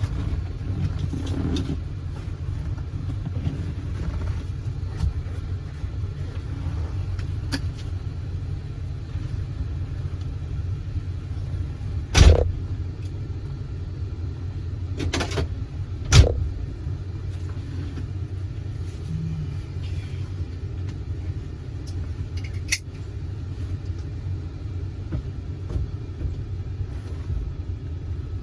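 A 1971 Oldsmobile Cutlass S on the move: a steady low rumble of engine and road noise, broken by two sharp loud thumps about 12 and 16 seconds in.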